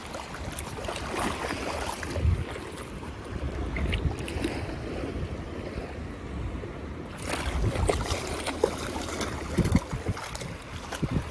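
Wind buffeting the microphone at the seashore, with surf washing in the background.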